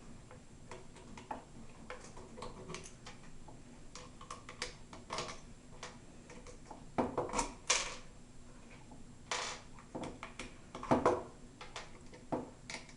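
Light scattered clicks and small metallic taps as the pre-loosened receiver bolts are taken out of a Tippmann 98 Custom paintball marker, with a few louder knocks about seven and eleven seconds in.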